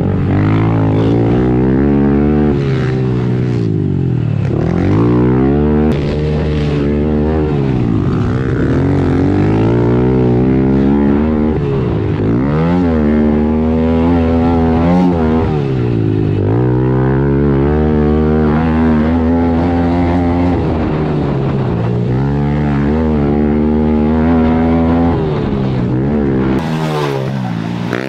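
Pit bike's small single-cylinder four-stroke engine, heard on board while racing: it revs up and drops back over and over as the rider works the throttle and shifts through the corners and straights. Near the end the engine sound breaks off briefly.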